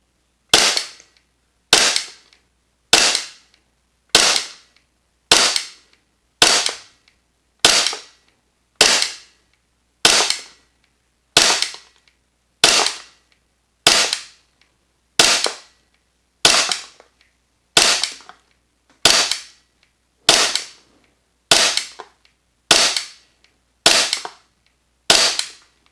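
VFC/Umarex Glock 45 gas blowback airsoft pistol, fitted with an energy-saving cylinder bulb and a soft spring, firing single shots. The shots are evenly paced about once every 1.2 seconds, some twenty sharp cracks in a row, each dying away quickly.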